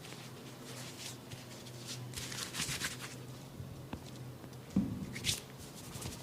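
Hands working through hair in a head massage, the 'hair cracking' technique: dry, crisp crackling and rustling in irregular bursts. Near the end there is a soft thump followed by a sharp crack.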